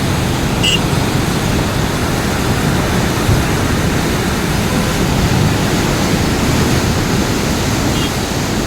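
Loud, steady rush of fast-flowing floodwater, an even roar with no break.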